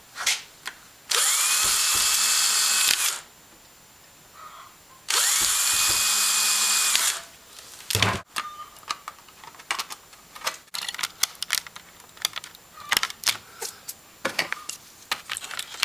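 Small electric drill run twice for about two seconds each, its motor whine rising as it spins up and then holding steady. Light clicks and taps of parts being handled follow.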